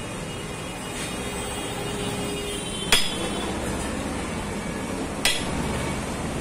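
Two light metal taps, about two seconds apart, of a steel rod striking a Scorpio AC blower motor. The motor is jammed in its plastic squirrel-cage fan and is being knocked loose.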